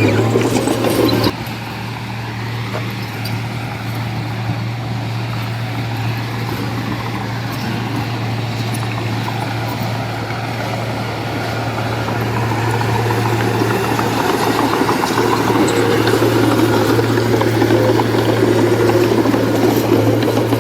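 Diesel engine of heavy earthmoving machinery running with a steady low hum. The level drops suddenly about a second in, then slowly grows louder through the rest.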